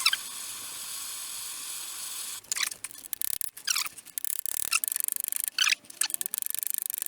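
Steady hiss of a gas blowlamp for about two and a half seconds, then it stops and gives way to irregular clicks and short squeaks of metal being handled.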